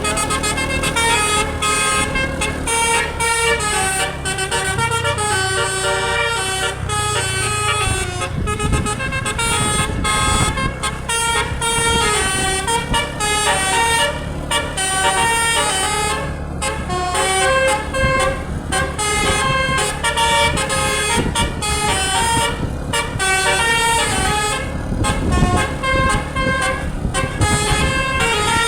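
Basuri-style musical air horn (DAV musical telolet horn) playing a tune in quick stepped notes, with a vehicle engine running underneath.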